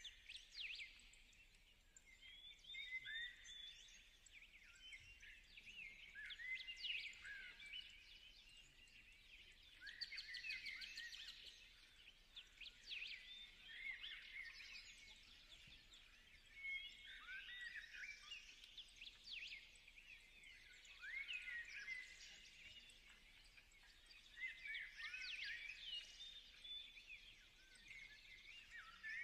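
Faint birds chirping and twittering in repeated bursts of short rising and falling notes.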